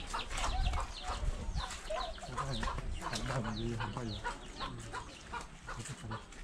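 Chickens clucking, many short calls one after another.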